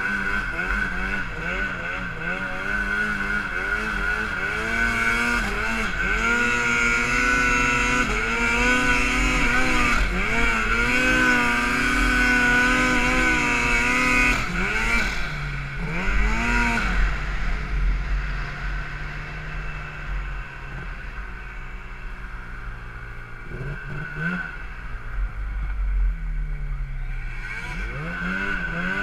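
Arctic Cat M8 snowmobile's 800 cc two-stroke engine revving hard while hillclimbing in deep powder, held at high revs for several seconds. About halfway through it drops back with a couple of quick throttle blips, runs lower for a while, then revs up again near the end.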